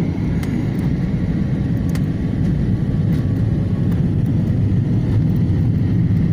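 Steady cabin noise of an airliner in flight: engines and rushing air as an even, deep rumble, heard from inside the passenger cabin, with a few faint clicks.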